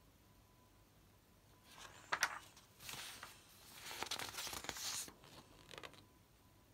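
Sheets of paper rustling and crinkling as a hand-held sign is swapped for the next one, with a sharp snap of paper about two seconds in and longer rustles after it.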